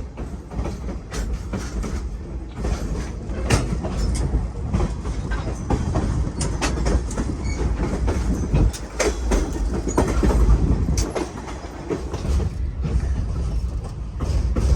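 Verde Canyon Railroad passenger train rolling along the track, heard from on board: a steady low rumble with irregular clicks and knocks from the wheels on the rails.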